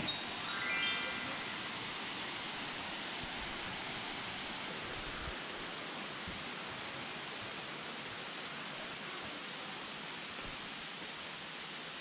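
Steady rush of a waterfall cascade. In the first second a quick rising run of chime notes sounds over it.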